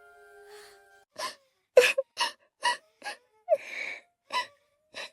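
A voice sobbing in short gasps: about ten quick, separate breaths, some with a brief cry in them, after a faint fading tone.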